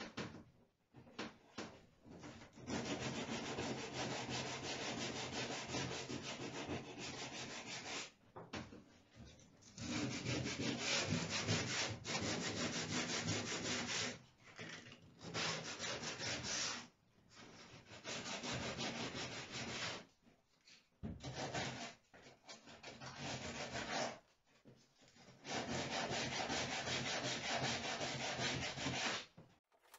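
Wood being sanded: the floor frames inside a wooden boat hull rubbed down with sandpaper, in stretches of a few seconds with short breaks between them.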